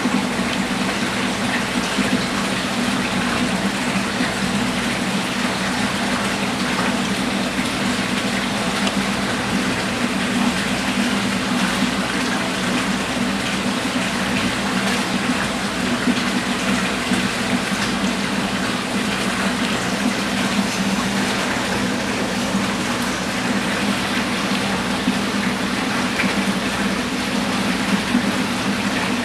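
Aquarium water circulation: a steady rush of moving water with a constant low hum, typical of a pump pushing water through the tank.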